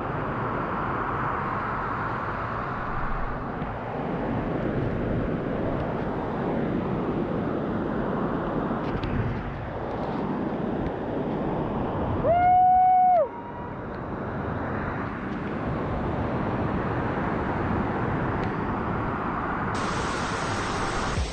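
Steady rushing roar of a waterfall. About twelve seconds in, a single short, loud, steady whistle-like tone sounds for under a second.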